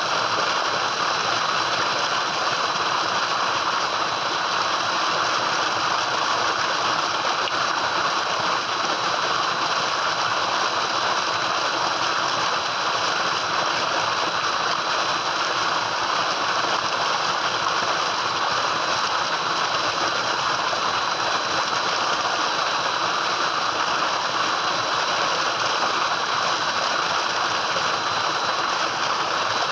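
Tubewell pump discharge: water gushing steadily from the outlet pipe into a concrete tank, a constant rushing sound.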